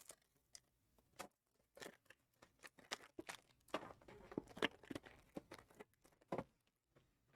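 Trading-card packaging being handled and torn open: faint crinkling and tearing of wrapper and cardboard, heard as a string of short, irregular rustles and clicks.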